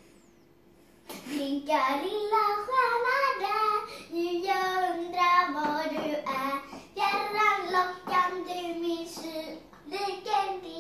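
A child singing a wordless-sounding tune, holding notes and stepping between pitches, starting about a second in after a short pause.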